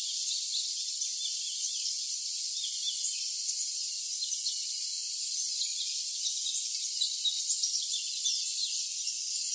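Steady high cricket chorus with many songbirds chirping over it in short quick notes, the whole soundscape thin and high with no low sound at all.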